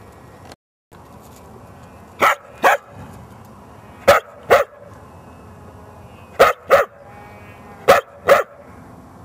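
Dog barking in pairs: four double barks, each pair a second or two after the last.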